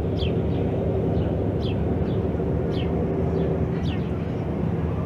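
Steady low engine hum with a bird repeating a short, falling high call about once a second over it.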